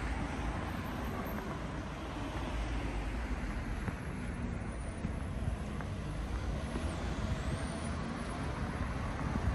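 Street traffic: cars driving past on the road alongside, a steady noise of engines and tyres.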